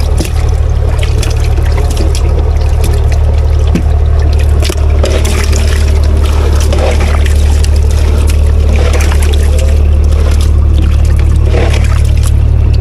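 Water scooped with a plastic scoop and poured splashing and trickling into a boat's fish hold, over a loud, steady low rumble.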